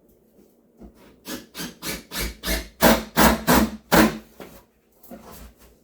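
Hammer striking wood, about ten blows at roughly three a second, growing louder and then stopping, as a wooden cabinet base is knocked into place.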